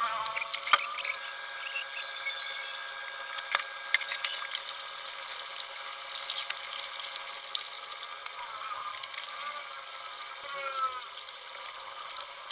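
Water splashing and dripping with scattered small knocks and clicks, from clothes being washed by hand.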